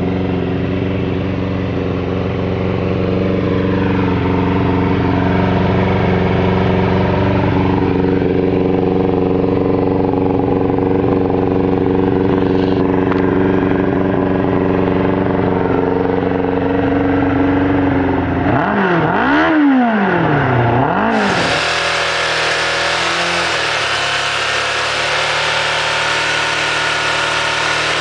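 Suzuki GSX600F Katana inline-four engine idling steadily. About two-thirds of the way in it is revved twice in quick succession, the pitch climbing and dropping each time. A second GSX600F then idles steadily.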